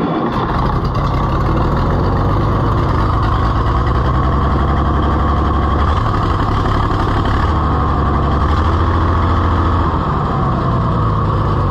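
Oliver 1655 tractor's six-cylinder gasoline engine running steadily, still missing on its dead number five cylinder with a new spark plug fitted: the cylinder has no compression, and internal engine damage is suspected.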